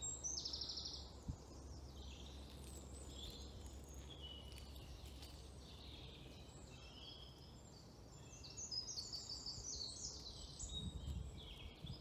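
Several songbirds singing at once, many short chirps and trills overlapping, with a faint low rumble underneath.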